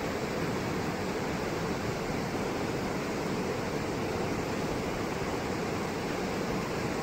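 Fast mountain river running over boulders and rapids: a steady, unbroken rush of water.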